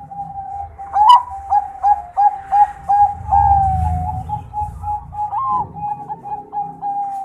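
Bangkok-line perkutut (zebra dove) singing: a long run of short cooing notes, about three a second, each with a small upward flick, with one longer drawn-out note in the middle. A sharp click about a second in is the loudest moment, and a low rumble sits under the middle of the song.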